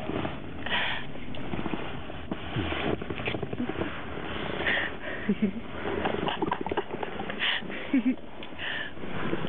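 A person breathing audibly and sniffing, in a series of breathy puffs, with a couple of short low vocal sounds about five and eight seconds in.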